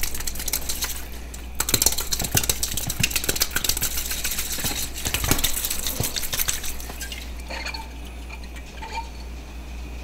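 A hard-boiled egg shaken in a drinking glass with a little water, knocking and rattling against the glass in rapid clinks as its shell cracks apart. The rattling thins out in the last few seconds.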